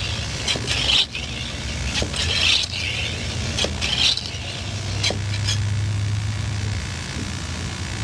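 Bicycle floor pump being worked to inflate an inner tube: several strokes in the first half, each a rush of air about a second or so apart. A few light clicks follow, over a steady low hum.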